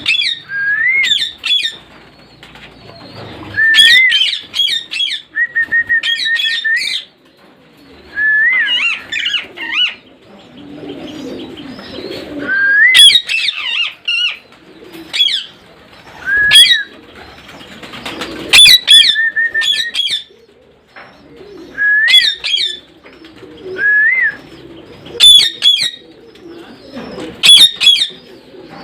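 Parrots calling over and over: shrill squawks mixed with short rising whistles, coming in bursts every second or two, with a couple of longer held whistles.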